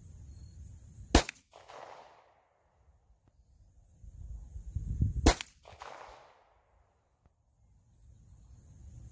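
Two pistol shots, slow aimed fire about four seconds apart, each followed by a short echo that fades.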